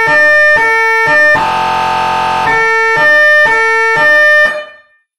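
Federal Signal Phoenix electronic siren through an AS422 speaker, sounding a steady electronic tone that jumps back and forth between two pitches in an uneven rhythm, then cuts off suddenly about four and a half seconds in.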